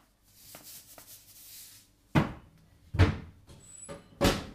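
An oven door and a metal baking tray clunking as a tray of oven chips is taken out: a soft hiss, then three sharp knocks about a second apart, each with a short ring.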